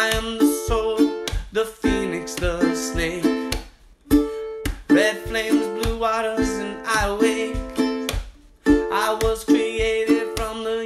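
Instrumental passage of a song: plucked strings over a steady beat, with a wavering melody line above, dropping out briefly twice.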